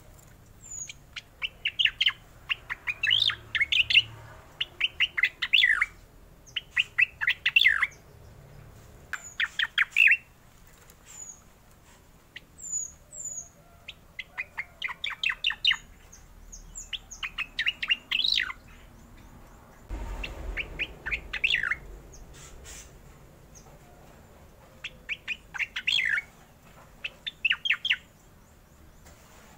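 Caged striated grassbird (cica koreng) singing in its rolling song: repeated bursts of rapid, rattling notes, each phrase a second or two long with short pauses between, and a few thin high whistled notes in between.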